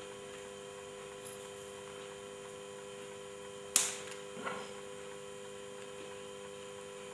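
Small hand tool on an optical fiber pigtail clicking sharply once about four seconds in, with a softer click about half a second later, as the fiber's outer layer is stripped off. A steady electrical hum runs underneath.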